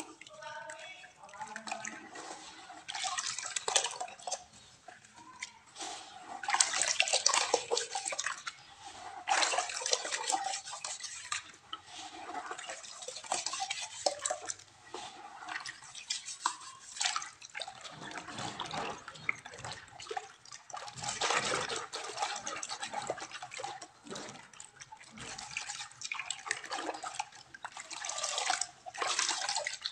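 Hands swishing and kneading soil and clay in a plastic basin of muddy water: irregular sloshing and splashing, with water dripping and trickling from cupped palms.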